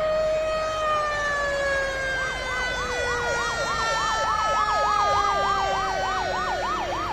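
Siren sound effect: a long wailing tone slides slowly down in pitch. About two seconds in, a fast up-and-down yelp siren joins it, warbling about four times a second.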